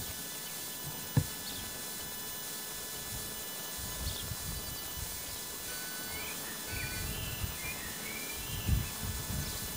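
Steady outdoor background with a short knock about a second in and a few bird chirps in the second half. Under it, a low rumble comes and goes and builds toward the end: the distant approach of the A1 Pacific steam locomotive Tornado.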